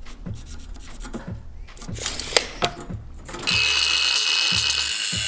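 Light scratching and tapping of marking out on steel flat bar. About three and a half seconds in, an angle grinder with a cut-off wheel starts suddenly, with a loud, steady high-pitched grinding of the wheel cutting the steel bar.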